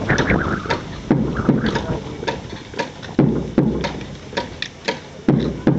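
Rifle drill by a squad: boots stamping on paved ground, mostly in pairs, and rifles slapped and snapped between movements, making a run of sharp clicks and heavy thuds.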